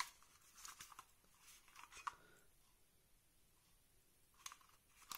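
Faint clicks and light rustles from a cheap plastic spring airsoft pistol being handled and turned over in the hands: one sharp click at the very start, then a few small scattered clicks.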